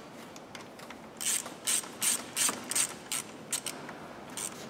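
Ratchet wrench tightening a car battery terminal clamp: a run of short clicking ratchet strokes, about two to three a second, starting about a second in.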